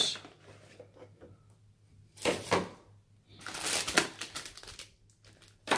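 Plastic packaging crinkling and rustling as accessories in plastic bags are handled and lifted from a clear plastic tray, in two bursts: a short one about two seconds in and a longer, louder one near four seconds.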